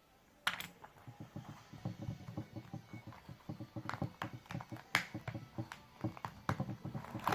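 Small watch-repair tools being handled in their kit: a run of irregular clicks, taps and rattles of metal and plastic, starting with a sharp click about half a second in.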